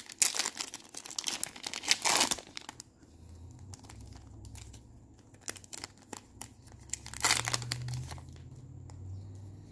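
Foil wrapper of a Topps Chrome trading-card pack being torn open and crinkled by hand, in loud crackling bursts over the first three seconds and again about seven seconds in.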